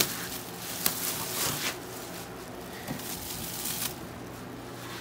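Plastic wrap and cardboard packaging rustling and crinkling in short, scattered handfuls as a new engine is unpacked from its shipping box, over a faint steady low hum.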